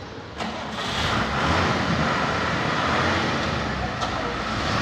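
Heavy vehicle engine running, loud and steady, coming in suddenly about half a second in. It is most likely one of the Tata fire engines.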